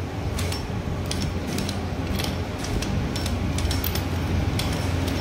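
Light metallic clicks and clinks, about ten of them spread unevenly, as the gears and selector of a Bajaj Platina 100cc motorcycle gearbox are turned and shifted by hand to check the fit. A steady low hum runs underneath.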